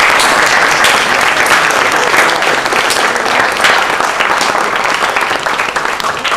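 Audience applauding, many hands clapping in a dense, steady patter that thins out near the end.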